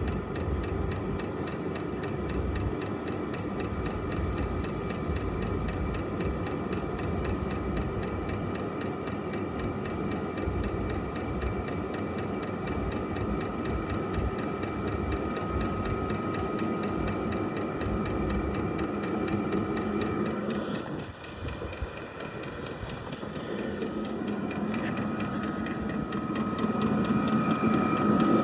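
Vevor diesel air heater running: a steady blower whine over a mechanical hum, with faint regular ticking. The sound dips briefly about two-thirds of the way through, then grows louder near the end.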